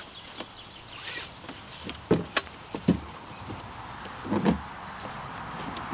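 Nylon webbing of a cam-buckle canoe trailer strap being pulled through its metal buckle and cinched tight around a wooden fence post, with a few sharp clicks and knocks about two to three seconds in and a louder short scrape a little after four seconds.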